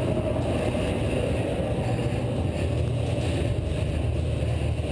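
A steady low mechanical drone with a constant hum, unchanging throughout.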